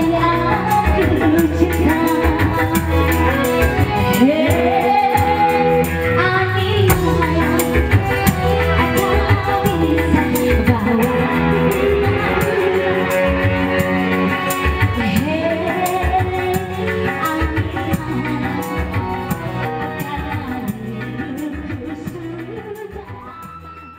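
Band music with singing, saxophone and a steady percussion beat, fading out near the end.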